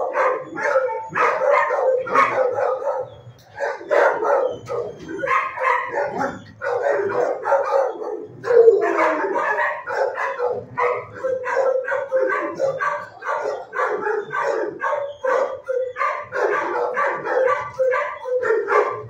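Several shelter dogs in kennels barking continuously, their barks overlapping with hardly a break, with a short lull about three and a half seconds in.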